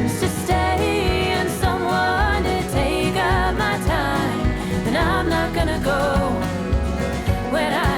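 A song with a singing voice over a steady beat and bass, in a country style.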